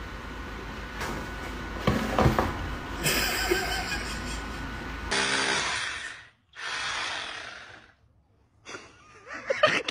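Two long, breathy blows of air, each about a second long, in the second half. The first half holds only steady faint background noise and a few soft knocks.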